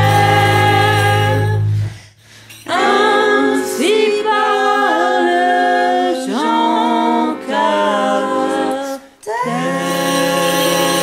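Mixed vocal trio singing a comic French song in close harmony. A held chord over low instrumental backing cuts off about two seconds in, then the voices go on unaccompanied in short phrases with brief breaks, and a long held chord with the low backing returns near the end.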